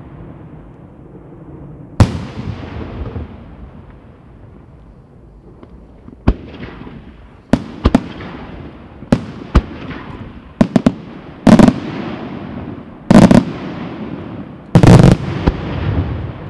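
Aerial firework shells bursting: one sharp bang about two seconds in, then a quieter stretch, then a quickening run of bangs. The run ends in three longer, louder bursts, each trailing off in a rumbling echo.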